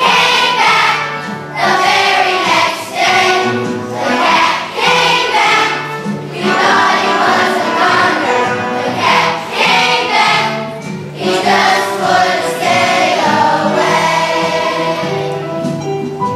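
A large children's choir singing with instrumental accompaniment.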